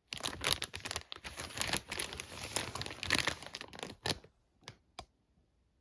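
Packaging crinkling and rustling as it is handled, stopping about four seconds in, followed by two light taps.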